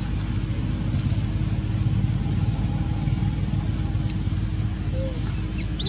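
Steady low rumble of a running vehicle engine, with a short high chirp near the end.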